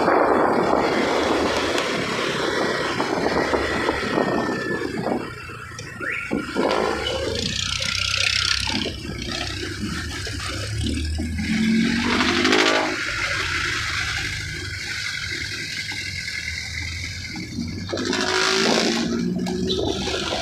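Steady hiss of tyres on a wet road from a moving vehicle, with an engine's pitch rising briefly about halfway through and again near the end.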